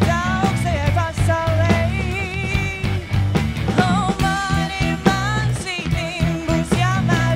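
Rock band playing, with bass and drums under a wavering, bending lead melody.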